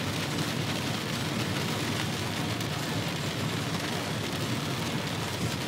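Steady hiss of rain and tyres on a wet road, heard from inside a moving car's cabin.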